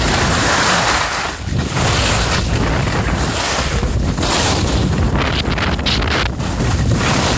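Wind buffeting the microphone of a camera carried by a skier going downhill at speed, a loud, uneven rushing that swells and dips briefly a few times.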